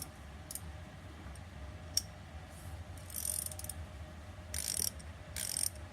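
Gedore reversible ratcheting wrench with a fine-tooth ratchet clicking through short back-and-forth strokes: one sharp click about two seconds in, then three brief bursts of fine ratchet clicks.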